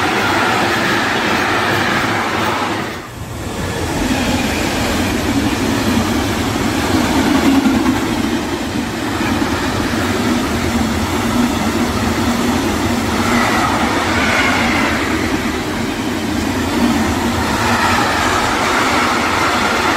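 Freight train's container flat wagons rolling past close by, a continuous rumble and rattle of wheels on rail, with a brief dip about three seconds in.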